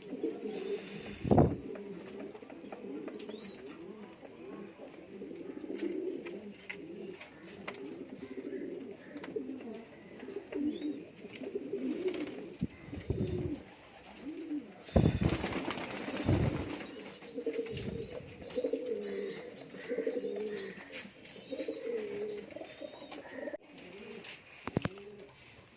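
Domestic pigeons cooing over and over in low, rolling calls. A few short, louder noisy sounds break in, about a second and a half in and again around the middle.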